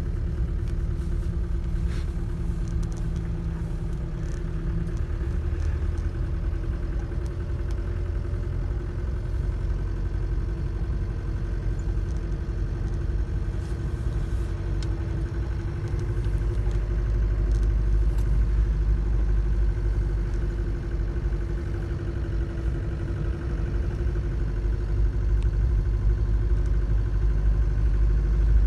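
Car driving along a snow-covered road, heard from inside the cabin: a steady low engine and road rumble that grows a little louder past halfway and again near the end.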